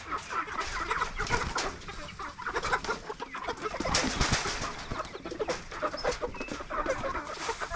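A flock of meat chickens clucking and cheeping excitedly all at once as they crowd in on freshly put-out feed.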